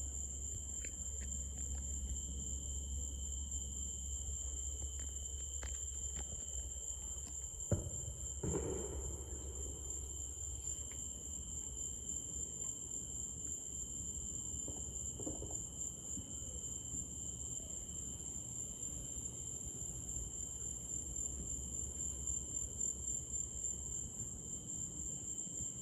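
Night chorus of crickets and other insects, a steady high trill at two pitches over a low rumble. About eight seconds in there is a single sharp pop, followed by a short dull rumble.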